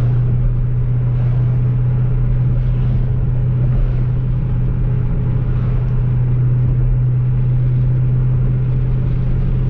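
Car driving at a steady speed: a constant low engine drone with road noise, heard from inside the car, with no revving.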